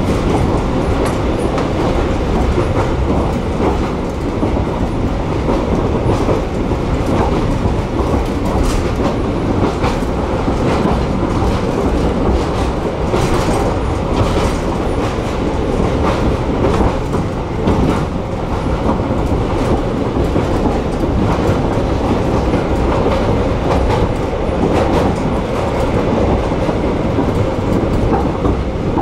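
Narrow-gauge heritage train running along the track: a steady rumble of wheels on rail, with the clickety-clack of rail joints and scattered sharper clicks.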